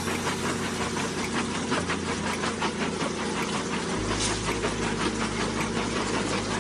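Jaw crusher running, a steady machine drone with a rapid, even knocking rattle. The low drone shifts about four seconds in.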